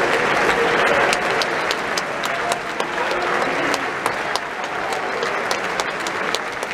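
Large theatre audience applauding steadily: a dense wash of clapping with individual sharp claps standing out.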